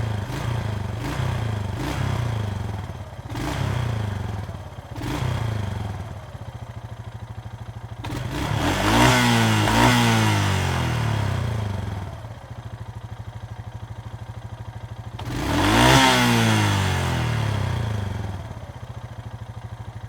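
ATV engine idling and being revved: first a run of short throttle blips about once a second, then two strong revs close together, and later one more rev, each falling back to a steady idle.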